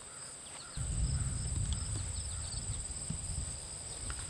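Steady high chirring of crickets and other insects, with a faint repeated chirp under it. A low, uneven rumble starts abruptly about a second in and is louder than the insects.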